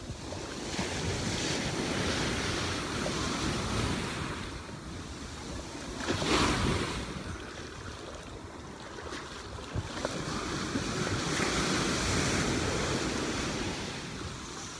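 Ocean surf washing through shallow water in three surges, the loudest about six seconds in, with wind buffeting the microphone.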